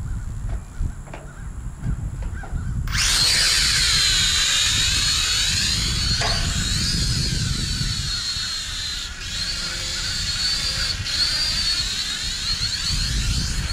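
Syma X5C mini quadcopter's small motors and propellers whining, coming in loud and close about three seconds in, its pitch wavering as it moves around near the microphone.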